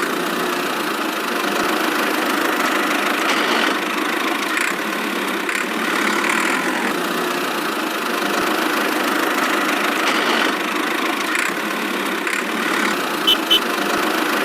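A small engine running steadily at an even speed, with two brief clicks near the end.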